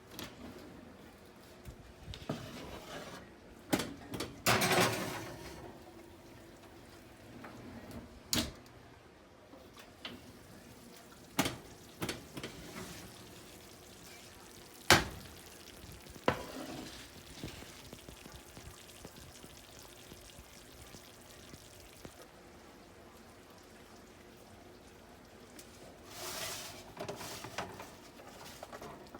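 Scattered sharp knocks and clunks of kitchenware being handled and set down, with two short stretches of rustling or scraping noise.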